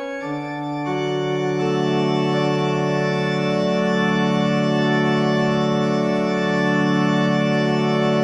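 Music: organ-like keyboard chords, the notes shifting in the first two seconds, then one chord held steadily.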